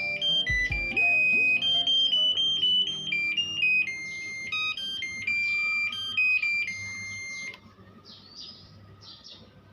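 Singer automatic washing machine's buzzer playing its end-of-cycle tune, a run of high electronic beeps stepping between pitches that stops about seven and a half seconds in. The tune signals that the wash has finished.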